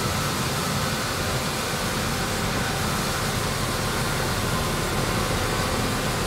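Vibro-replacement stone column rig running: the excavator carrier's diesel engine and the hydraulically driven bottom-feed vibroflot (depth vibrator) making a steady mechanical drone with a low rumble and faint humming tones.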